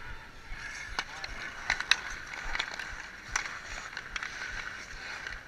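Ice hockey skates scraping and carving on outdoor ice, with several sharp clacks of sticks and puck scattered through.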